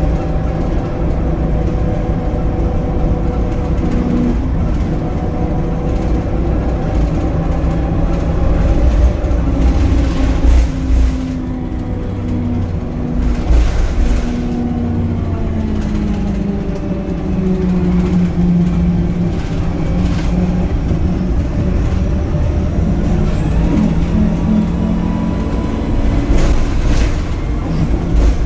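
Inside a VDL SB200 single-deck bus under way: the diesel engine and drivetrain run steadily, the engine note sinking through the middle and climbing again near the end as the gearbox changes ratio. A few brief sharp noises cut through. The uploader describes this bus's gearbox as knackered, juddering constantly on hills.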